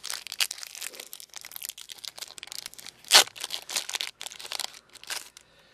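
Plastic trading card booster-pack wrapper crinkling and tearing as it is opened by hand, a dense run of irregular crackles with the sharpest one about three seconds in.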